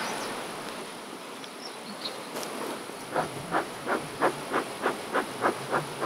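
Bellows of a bee smoker puffing smoke into an open beehive, about three puffs a second, starting about halfway through. Before that, honey bees hum around the open hive.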